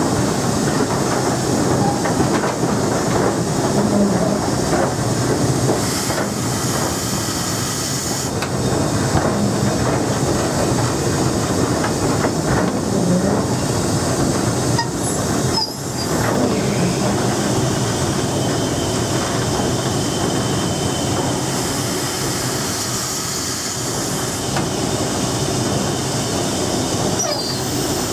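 Cab din on the footplate of the GWR King class four-cylinder 4-6-0 steam locomotive King Edward II under way: a loud, steady mix of steam hiss and the locomotive running on the rails, with a short dip in the noise about halfway through.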